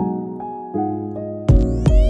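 Outro music: soft sustained keyboard chords, joined about one and a half seconds in by a drum beat and bass.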